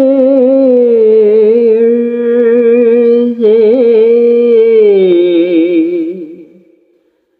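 One voice singing a naat unaccompanied, drawing out long, wavering notes. A new held phrase starts about three and a half seconds in, and the voice fades out near the end.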